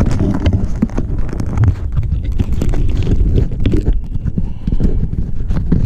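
Handling noise from fingers gripping, rubbing and tapping on the body of a GoPro Hero Session 5: a run of irregular close knocks and clicks over a low rumble.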